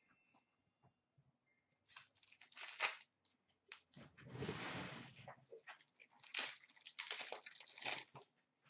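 Hockey card pack wrapper being torn open and crinkled by hand: several short crackling rustles, with a longer tear about four seconds in.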